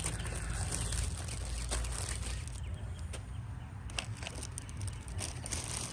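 Scattered small clicks and rustles from handling the trimmer's handle parts, over a steady low rumble.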